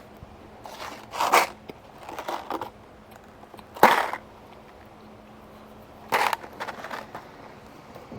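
A few short rustling and knocking handling noises, four separate bursts, with the loudest a sharp one just before halfway.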